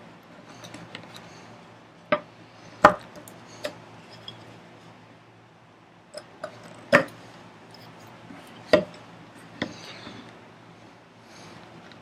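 Hand woodworking tools cutting a dado in a wooden vise chop: a handful of sharp, irregular knocks and clicks, six of them loud, with fainter ticks between.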